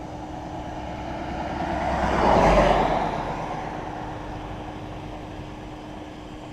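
A car passing by on the road, its tyre and engine noise swelling to a peak about two and a half seconds in and then fading away, over a steady low hum.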